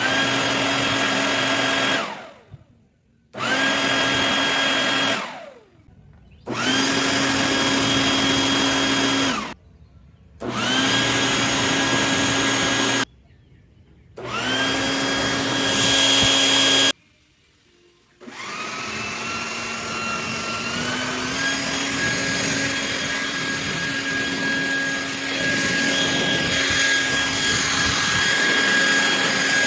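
High-powered leaf blower, rated at over 100 mph of air, switched on and off in five bursts of two to three seconds each, its whine rising as it spins up each time. It is then left running for the last ten seconds or so, stepping up to a higher pitch a couple of seconds after starting.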